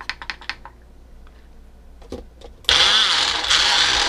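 A few clicks and clatters as the Magic Bullet blender cup is handled, then, about two and a half seconds in, the blender's motor starts and runs loudly, its pitch wavering as it chops a load of raw cauliflower pieces.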